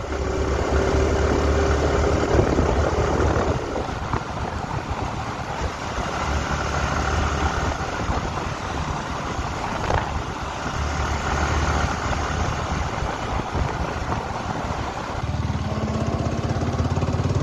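Sport motorcycle engine running at steady road speed under heavy wind rush on the microphone. About fifteen seconds in, with the bike down to low speed, the engine note comes up louder and rises as it pulls away again.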